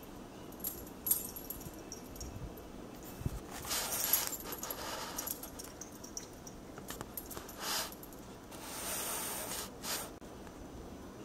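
A cat pawing and scrabbling at a closed wooden door, trying to get it open: irregular bursts of scratching and rattling, with a few sharp clicks from the door and its handle.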